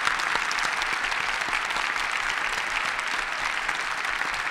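Audience applauding steadily: a dense patter of many hands clapping at an even level.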